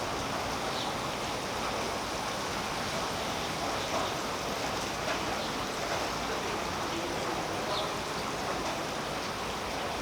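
Steady rain falling on tree leaves, an even hiss with a few separate louder drops ticking through it.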